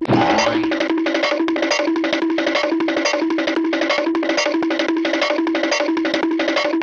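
Hanna-Barbera cartoon running sound effect: a fast, even patter of knocks over a repeated low note, about three to four beats a second, starting abruptly and looping steadily.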